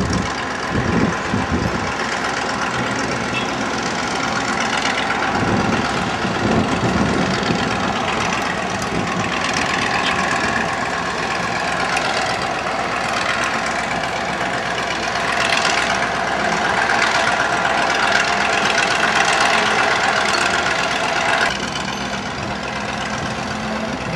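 Steady engine hum of road traffic under a continuous hiss. Part of the higher hiss drops away shortly before the end.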